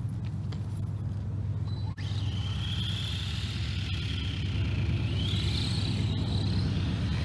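Arrma Senton RC truck's 5200 kV brushless motor whining as it drives, the pitch wavering and then climbing as it speeds up about two-thirds of the way through, over a steady low rumble.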